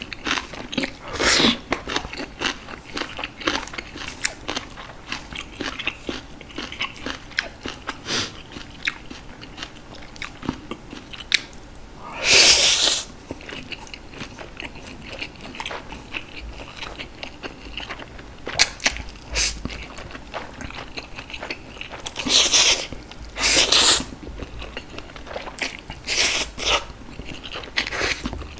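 Close-miked eating of Jjapaghetti noodles and green onion kimchi: steady chewing and crunching with many small wet clicks, and four louder noisy bursts of about a second, one about a second in, one near the middle and two near the end.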